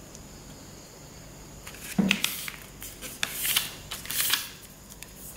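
A sheet of A4 paper rustling and swishing as hands press and smooth a lengthwise fold flat on a table. A soft thump comes about two seconds in, followed by several short sliding strokes.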